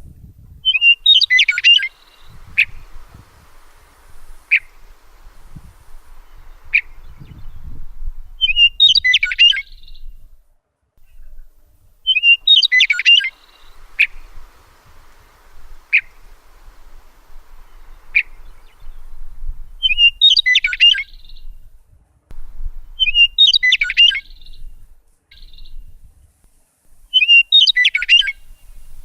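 Birds singing: about six short, quick chirping phrases, a few seconds apart, with single sharp chip notes in between.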